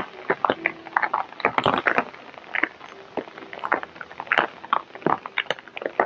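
Rain falling, with large drops landing in dense, irregular sharp taps close by.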